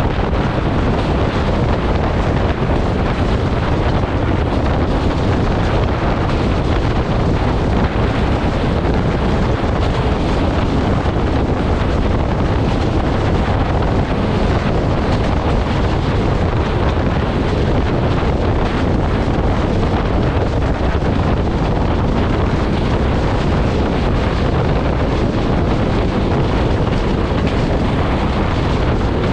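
Steady wind rushing over the microphone outside a passenger train running at high speed, over the low rumble of the train on the track.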